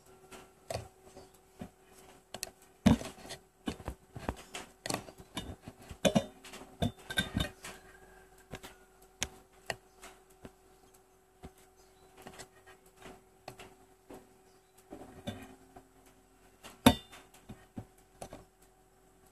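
Irregular clicks, taps and knocks of small objects being handled, with two louder knocks, one about three seconds in and one near the end, over a faint steady hum.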